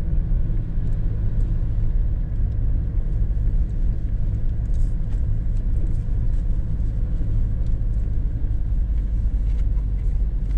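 Steady low rumble of a car driving along a town street, engine and tyre noise heard from inside the cabin, with a few faint ticks.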